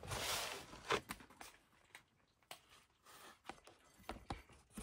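A cat eating from a bowl in a wire cage: faint scattered clicks and ticks of chewing and bowl contact, after a brief rustle at the start and a sharp knock about a second in.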